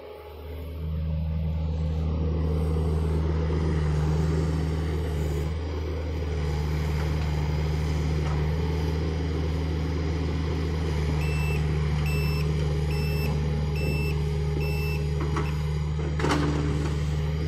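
John Deere excavator's diesel engine running steadily, coming up in level about a second in. Past the middle its travel alarm gives five short beeps, a little under a second apart. A single knock comes near the end.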